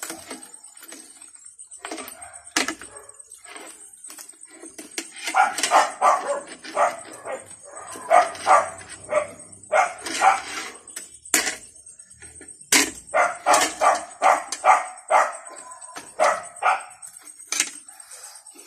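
A dog barking repeatedly in short runs from about five seconds in, with a few sharp clinks of a spoon and fork against a plate.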